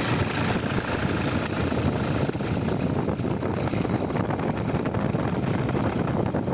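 Toyota Hilux SW4 engine idling with a noise from the accessory belt drive. The noise comes from a worn alternator pulley that slips at times.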